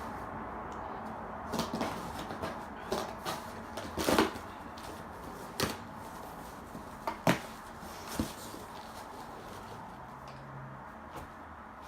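Gift boxes and packaging being handled: a scattered series of knocks, clicks and short rustles, the loudest about four seconds in and another sharp knock about seven seconds in.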